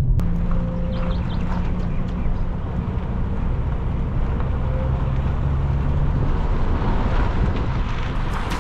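Car driving along the road: a steady hum of engine and road noise heard from inside the car.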